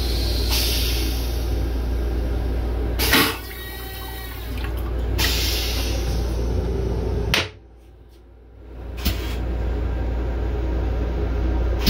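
Toilet in an M7 railcar restroom flushing, with water running into the stainless steel bowl. A sharp clack comes about three seconds in, over a steady low rumble that briefly drops away near the middle.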